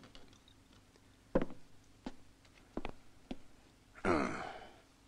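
A few light knocks and clicks from handling, then a breathy exhale with a falling pitch about four seconds in, as a wet towel is pressed to a man's face.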